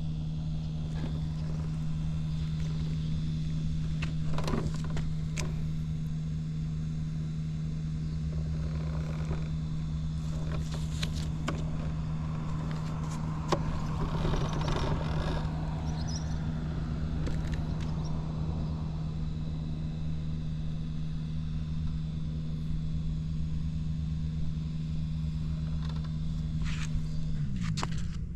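Tuned Suzuki Hi 50cc two-stroke scooter engine, fitted with a Mihara expansion chamber and a big carburettor, idling at a steady pitch with a few light clicks. Near the end its pitch drops and it dies away as the engine is shut off.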